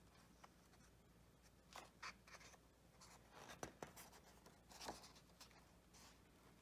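Faint rustling and sliding of heavy, deckle-edged paper as the pages of a handmade book are turned by hand: a cluster of short rustles from about two seconds in until near the end.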